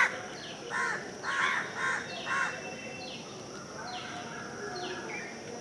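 A crow cawing about five times in quick succession, the first call the loudest, then stopping after about two and a half seconds. Another small bird keeps giving short falling chirps roughly once a second.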